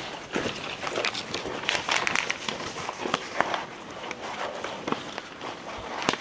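Footsteps on stone paving: irregular steps and scuffs, busiest about two seconds in.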